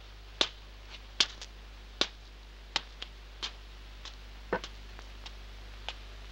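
Footsteps on a stone courtyard: sharp steps about one every three-quarters of a second, growing fainter after about four and a half seconds, over a steady low hum.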